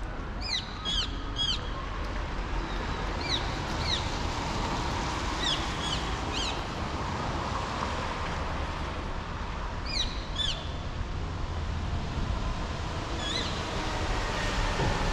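Small birds chirping, short sharp downward-sweeping calls in runs of two or three, over the steady hum of city traffic. The traffic grows louder near the end as a bus comes close.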